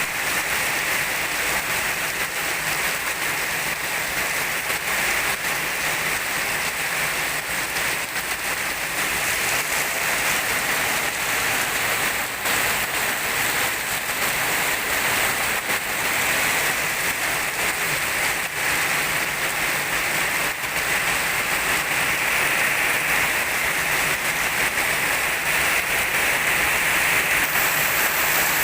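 Steady rain falling, an even hiss with scattered drop taps, growing a little louder over the last several seconds.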